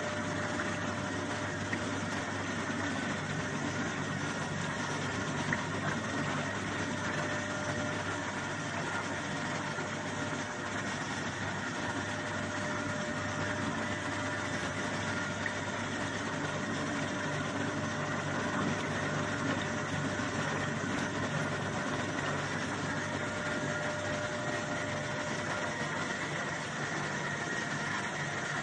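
Soybean washing machine for tempeh making running steadily: a constant motor hum with a thin steady whine over it.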